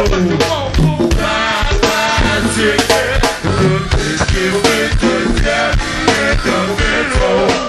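Live go-go band playing a song: a steady drum-kit and percussion beat with voices and instruments over it.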